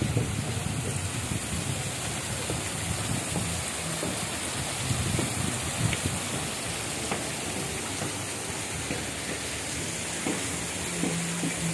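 Steady splashing rush of water from a small artificial waterfall falling over rocks.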